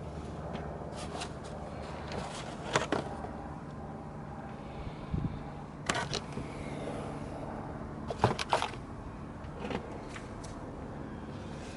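Scattered clicks and knocks of a replacement starter motor being handled, over a steady low hum.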